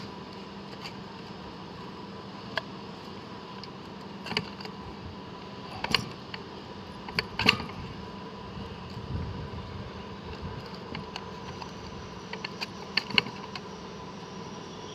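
Manual 3-in-1 sheet-metal shearing, bending and rolling machine being worked by its hand lever: a string of sharp metallic clanks and clicks at irregular intervals as a small sheet-metal piece is worked, with the loudest clanks about six to eight seconds in and again near the end.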